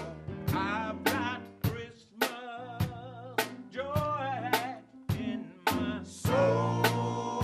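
Men's choir singing an upbeat song with vibrato, backed by a drum kit that keeps a steady beat of a little under two hits a second.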